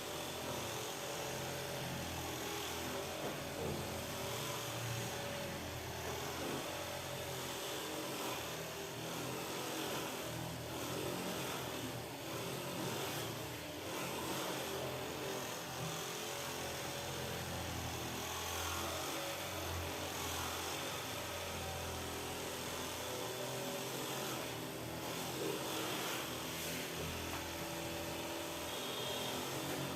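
A small electric motor running steadily without a break, with a low hum whose pitch wavers slightly.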